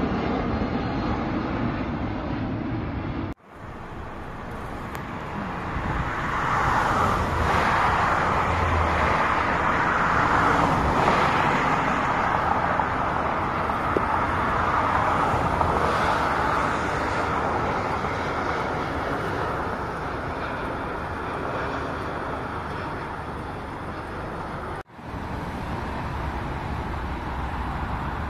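Jet airliner engine noise: a steady rushing roar that swells for several seconds and then slowly fades as the aircraft passes, broken by two abrupt cuts.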